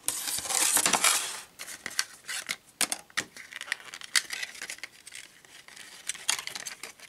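Stiff plastic blister packaging being torn open and pulled off a diecast toy car: crackling plastic with sharp clicks and taps, loudest in the first second, then sparser crackles and clicks.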